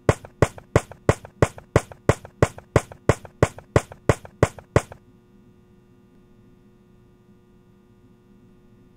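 A fast, even series of sharp percussive strikes, about three a second, that stops abruptly about five seconds in. A steady hum with several fixed tones follows.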